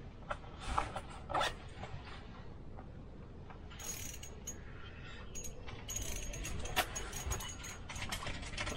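Small ice-fishing spinning reel being handled and then cranked to bring up a fish: a few scattered clicks and knocks early, then a dense run of quick ticks and rattles through the second half.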